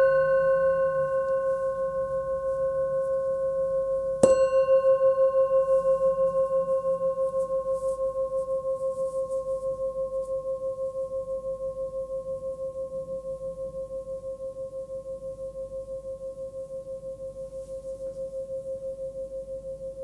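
Small hand-forged singing bowl, 11 cm across with a fundamental of about 528 Hz (C), struck again about four seconds in and ringing out with a clear high tone and fainter overtones. The ring fades slowly and wavers in a steady pulse.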